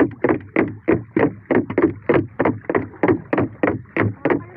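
Rapid, steady knocking on the wooden hull of an outrigger canoe, about three sharp knocks a second. The knocking is meant to drive fish toward the set net.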